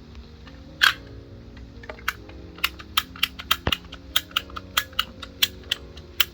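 Large raindrops starting to fall, landing as separate sharp taps a few times a second and coming more often after the first couple of seconds, over soft background music.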